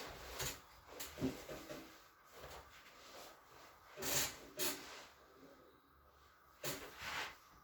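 A person's breathing: a few short, breathy puffs of air, the loudest about four seconds in and a longer one near the end, with fainter rustling between.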